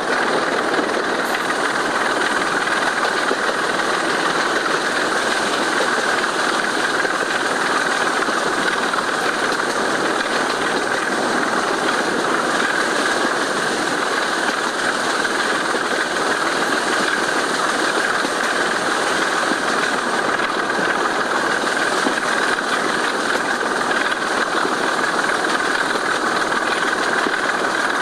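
Sulzer 6LDA28 six-cylinder diesel engine of a BR Class 25 locomotive working flat out at full power, a loud steady engine noise that holds without easing.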